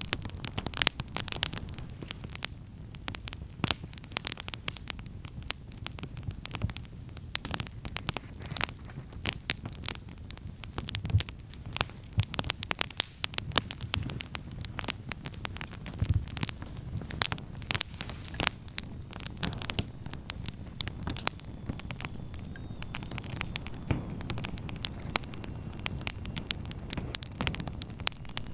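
Newly lit wood campfire crackling with dense, sharp pops and snaps over a steady low rumble of the flames as the kindling catches.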